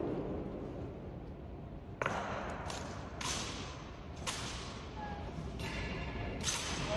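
Sharp cracks of an honor guard's drill, from boot heels striking the stone floor and rifles being slapped and grounded, about four of them a second or so apart, each ringing on in the hall.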